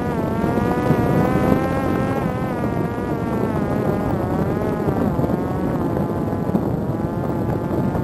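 Parrot Disco fixed-wing drone in flight: its brushless electric motor and rear pusher propeller running with a buzzing whine whose pitch dips slightly a few times, over heavy wind rush on the onboard microphone.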